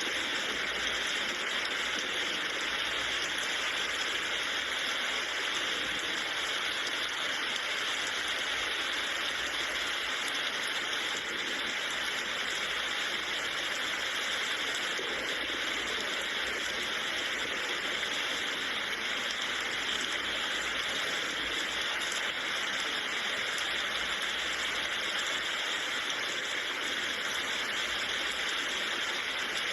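Rain falling steadily, an even hiss with no distinct drops or thunder standing out.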